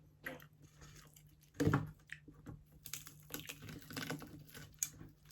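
Close-up chewing of crispy pata (deep-fried pork knuckle): irregular crisp crackles and clicks of crunchy skin being bitten and chewed. A short hum of a voice comes about one and a half seconds in.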